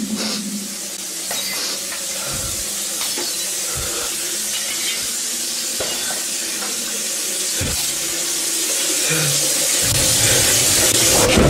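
Steady hissing noise, like static or rushing air, that swells toward the end, broken by a few dull low thumps and a deep rumble in the last second or so.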